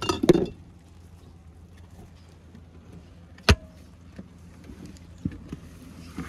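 A glass jar and the lid of a portable plastic fridge being handled: a clatter at the start, then a single sharp knock as the lid is shut about three and a half seconds in, with a few lighter knocks after, over a steady low hum.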